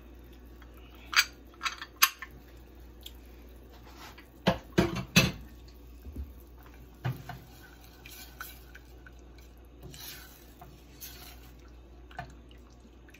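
Kitchen utensils clacking and knocking against a stainless steel saucepan: a plastic hand lime squeezer handled over the pot, with a quick cluster of loud knocks about four to five seconds in. Quieter stirring of the sauce with a silicone spatula follows near the end.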